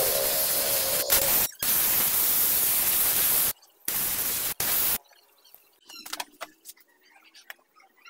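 Gravity-feed compressed-air spray gun spraying finish onto turned wood in bursts: a loud, steady hiss that breaks off briefly about one and a half seconds in and again at three and a half seconds, gives one short burst, and stops about five seconds in. Faint clicks follow.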